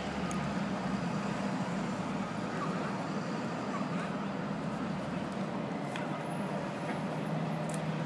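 Steady low mechanical hum over a general haze of outdoor noise.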